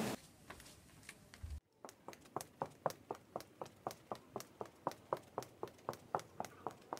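Footsteps of someone walking briskly on a hard, polished floor, about three steps a second, starting about one and a half seconds in after a few faint taps.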